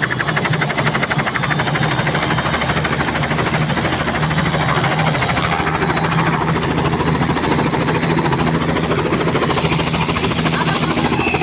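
Helicopter running close by: a rapid, even rotor chop over a steady engine hum, the chop growing fainter about halfway through.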